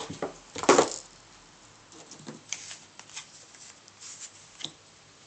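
Cardstock calendar pages being handled and shuffled on a tabletop, with light rustles and small clicks and one louder knock just before a second in.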